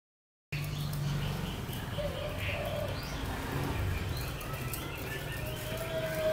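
A caged Vietnamese 'mi' songbird singing short, low whistled phrases, with a longer held whistle near the end, over a steady low hum.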